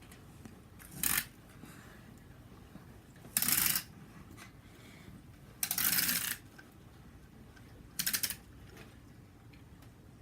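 Toy cars rattling briefly across a hard surface, four short bursts a couple of seconds apart.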